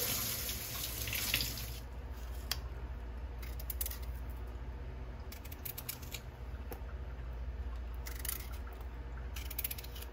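A kitchen tap runs for the first couple of seconds and then stops. After that, a low steady hum continues under scattered light clicks and taps as potato pieces are cut by hand and dropped into a plastic container.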